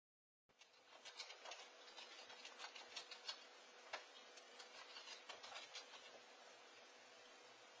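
Faint, irregular clicks and taps from a cat pawing at a small toy, stopping about six seconds in, over the steady hiss and faint hum of a security camera's microphone.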